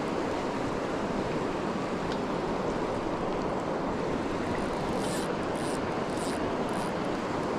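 River water rushing steadily, with a few short high hisses about five seconds in.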